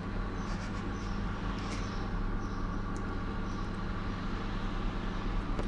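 Steady low mechanical hum, with a few faint small clicks over it.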